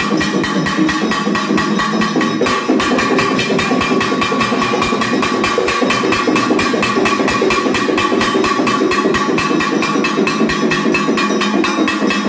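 Brass hand bell rung rapidly and without pause during the aarti: a steady metallic ringing made of fast, even strokes.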